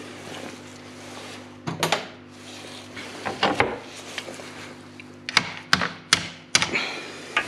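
Hand tools and metal engine parts being handled around the timing belt and cam pulley: scattered sharp knocks and clinks, a cluster of four near the end, over a steady low hum.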